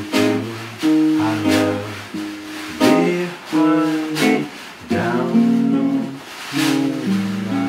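Small acoustic band playing a slow old-time song: archtop guitar strummed in chords, a snare drum played with wire brushes, and an accordion holding sustained chords.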